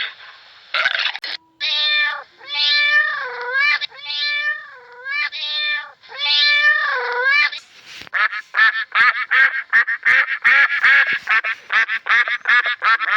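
Animal calls: a few drawn-out pitched calls that dip and rise in pitch, then, from about eight seconds in, a fast run of many short calls.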